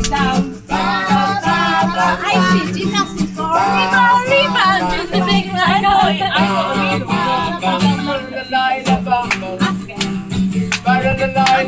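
Live acoustic guitar strummed as accompaniment to a singing voice. Sharp rhythmic clicks join in toward the end.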